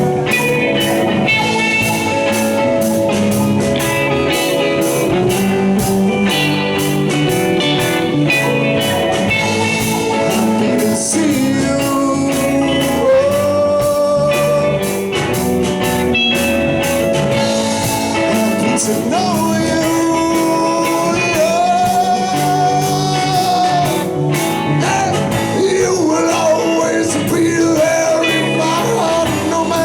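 Live psychedelic rock band playing an instrumental stretch: guitar holding long notes that bend in pitch, over drums with an evenly struck cymbal for most of it.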